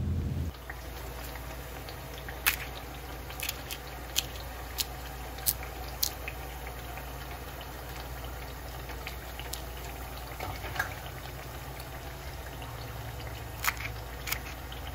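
Puris deep-frying in hot oil in a steel pan: a steady sizzle with scattered sharp pops.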